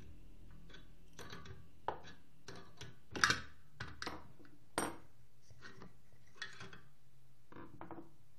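Irregular metal clicks and clanks from a screwdriver turning the bolt of a homemade bearing puller, pressing a circular saw armature's shaft out of its stuck, burnt bearing. The sharpest clanks come about three and five seconds in.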